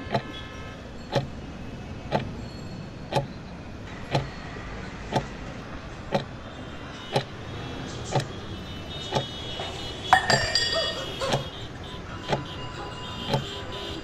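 Steady clock ticking, one tick about every second, with a brief clatter of clinking about ten seconds in.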